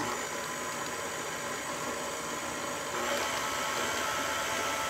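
KitchenAid Artisan stand mixer switching on and running steadily, its motor whining as the flat paddle beats cream cheese and sweetened condensed milk in the steel bowl. It comes on suddenly and steps up slightly in level about three seconds in.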